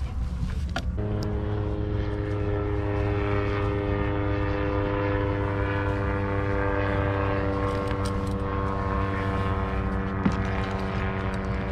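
An engine droning steadily at constant speed, starting about a second in, with one brief click near the end.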